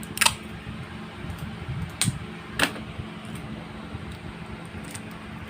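Sharp clicks of a hand stapler driving staples into cardboard. A loud one comes just after the start, then two more about two and a half seconds in.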